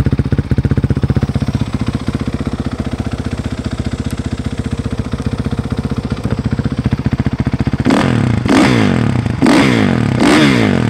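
A 2016 Kawasaki KX450F's single-cylinder four-stroke engine idling with an even pulse through a Yoshimura aftermarket exhaust. Near the end the throttle is blipped about four times, each rev rising and falling quickly.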